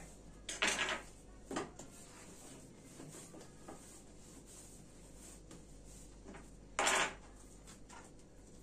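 Pizza dough being cut and rounded into balls by hand on a wooden tabletop: quiet handling with a few short knocks and clatters of a knife and dough on the wood, the loudest about seven seconds in.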